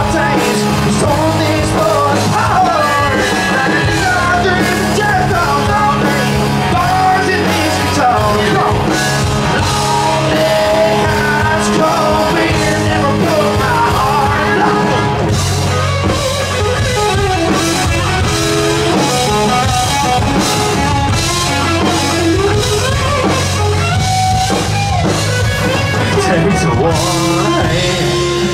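Live country-rock band playing a song: electric guitars, bass guitar and drum kit, with a man singing lead over them.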